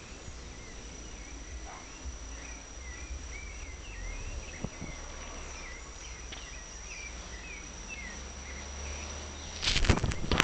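Rainforest insects holding a steady high drone, with a bird's short chirping notes repeating through the middle. Near the end a loud clatter cuts in over it.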